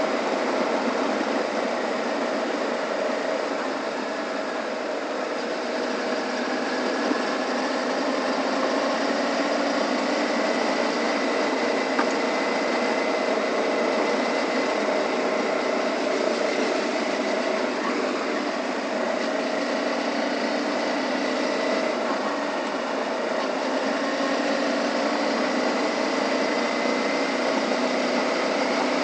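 Suzuki V-Strom 650's V-twin engine running steadily at cruising speed, mixed with wind and road noise from riding a dirt road.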